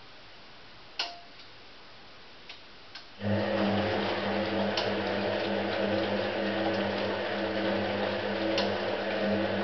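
Hotpoint 18371 Super Electronic washing machine pausing between tumbles during a rinse: fairly quiet with a single click about a second in, then about three seconds in the drum motor starts again and runs with a steady hum as the wet laundry tumbles.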